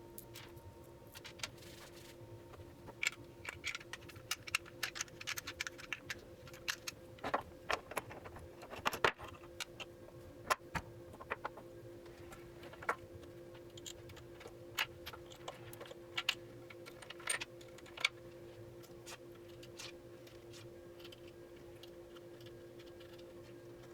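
Irregular small metallic clicks and clinks of hardware and a hand tool as a longboard truck is bolted onto the deck, most of them in the middle stretch and sparse near the end, over a steady faint hum.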